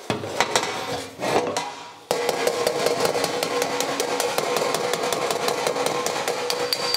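Body hammer striking a sheet-metal motorcycle fender backed by a dolly. A few scattered taps come first; about two seconds in, a fast, steady run of sharp ringing taps begins. This is on-dolly hammering, done to flatten a small crease in the panel.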